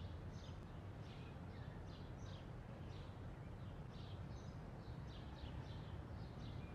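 Faint outdoor ambience: small birds chirping, short high chirps repeating a couple of times a second, over a low steady background hum.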